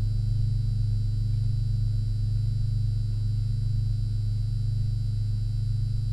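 Low electronic drone closing the soundtrack music: a steady deep hum with a slight fluttering pulse and a faint high tone held above it.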